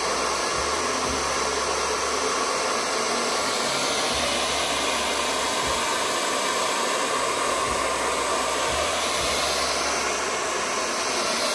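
Handheld hair dryer running on its cool setting, a steady, unbroken rush of air over the motor's hum. It is blowing cool air to make freshly applied lace-wig glue tacky.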